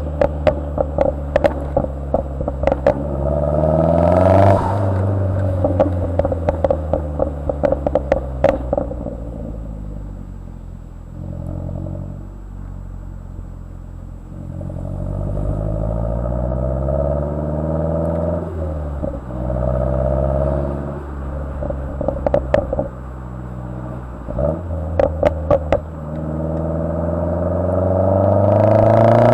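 A 2010 Mazdaspeed3's turbocharged 2.3-litre four-cylinder, on a tune with pops and crackles enabled and an aftermarket turbo-back exhaust, revving up and falling back again and again. Sharp exhaust pops and crackles come in a dense run through the first eight seconds and in shorter bursts later, mostly as the revs drop. A strong climb in revs near the end is the loudest part.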